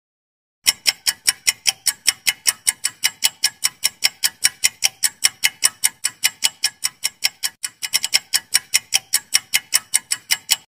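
Clock-ticking sound effect for a quiz answer timer: fast, even ticks, about five or six a second, starting a little under a second in and stopping abruptly near the end. The rhythm stumbles briefly about two-thirds of the way through.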